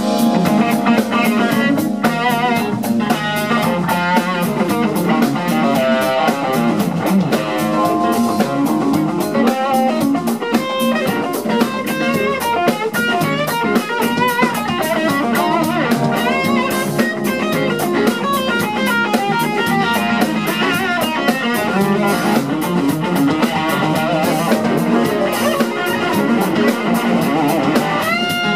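Live funk-rock band: a Les Paul-style electric guitar plays fast runs of single notes with bends over a busy drum kit groove, holding one long note near the end.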